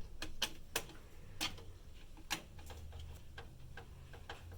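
Irregular sharp metal clicks and ticks from screws and tools being handled in a computer case. Several louder clicks come in the first couple of seconds, then fainter ticks.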